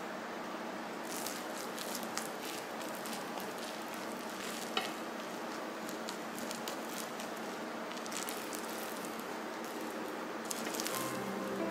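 Freshly cooked rice in a hot Staub cast-iron cocotte giving off a steady sizzle, while a wooden rice paddle stirs and scrapes through the grains with a few light clicks.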